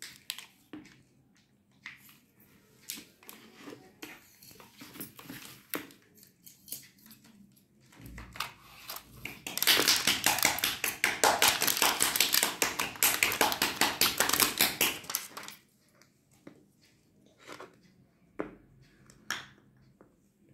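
Plastic shrink wrap around two glass honey jars crinkling and clicking as it is handled, then slit with a blade and torn away. The tearing is a loud, dense crackling lasting about six seconds in the middle, followed by a few faint clicks.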